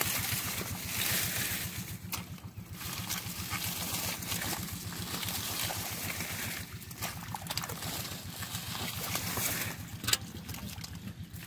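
Muddy water sloshing and splashing as bare feet wade and stir through a shallow, weed-choked pool, with one sharper splash about ten seconds in. A steady low drone runs underneath.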